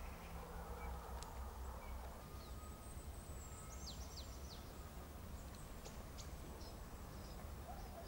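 Faint outdoor ambience: a steady low rumble, with small birds chirping, including a quick run of high, falling chirps about three and a half seconds in.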